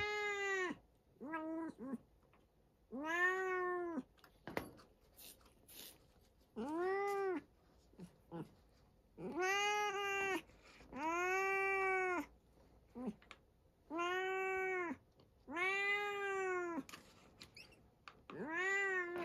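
A cat meowing over and over: long, drawn-out meows of about a second each, rising then falling in pitch, coming about every two seconds, with a few shorter meows between. The hungry cat is calling for a second helping of food.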